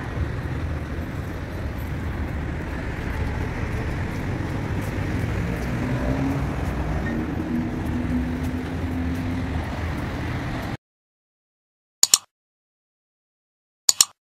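City street traffic: a steady rumble and hiss of passing cars that cuts off abruptly about three-quarters of the way through. Then come two short mouse-click sound effects about two seconds apart.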